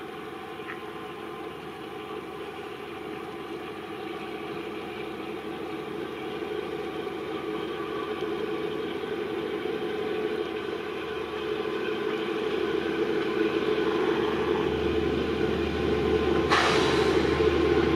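ZDM-3 narrow-gauge diesel locomotive approaching slowly, its engine running steadily and growing louder as it nears, with a deeper rumble building near the end. A short burst of hiss comes about a second and a half before the end.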